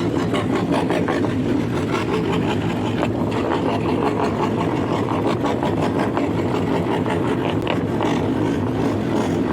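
Homemade scroll saw running steadily, its motor humming and its blade stroking rapidly up and down as it cuts wood.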